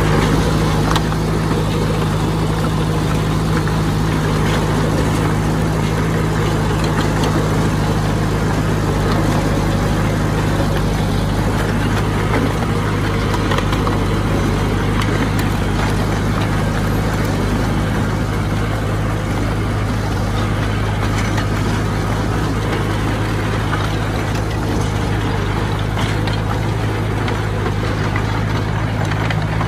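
Heavy diesel engine of earthmoving machinery running steadily at a constant, low hum.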